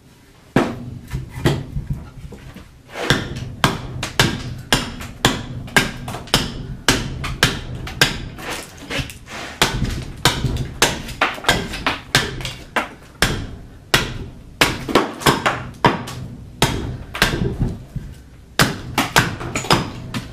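A carving axe hews a split half-log of green black walnut resting on a chopping block. It makes a steady run of sharp chops, about one and a half a second, with a few short pauses.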